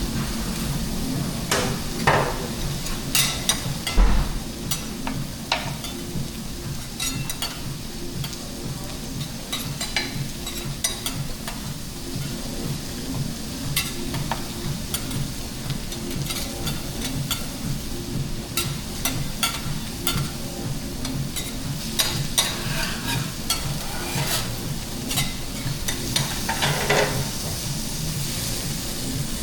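Food sizzling on a teppanyaki hot-plate griddle, with frequent sharp clicks and scrapes of metal spatulas and utensils on the steel, over a steady low hum.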